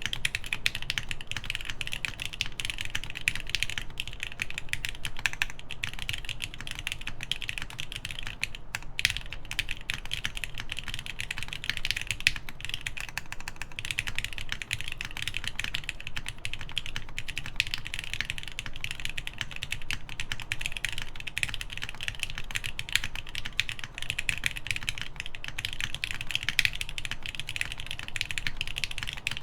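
Continuous fast typing on a mechanical keyboard with lubed, spring-swapped linear Gateron Ink switches, GMK doubleshot ABS keycaps and an FR4 half plate, with dense, even keystrokes and a few brief pauses.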